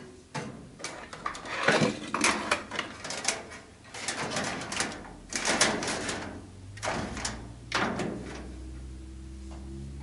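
Handling noise under a gas fireplace: irregular knocks, scrapes and rattles of metal parts as a blower fan is pushed into place. A low steady hum comes in about halfway through and holds to the end.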